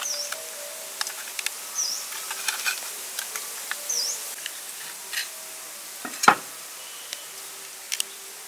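Knife blade scraping and clicking against a raw oyster shell as it is pried open at the hinge, with one loud sharp crack a little past six seconds in as the shell gives. A bird repeats a short chirp about every two seconds, and insects hum faintly.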